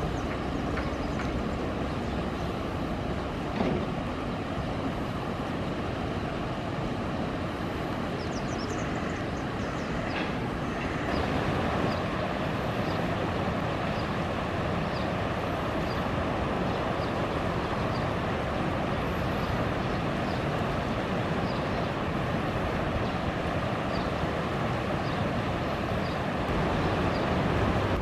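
Steady rushing outdoor noise, with faint short high bird calls repeating about once a second through the second half.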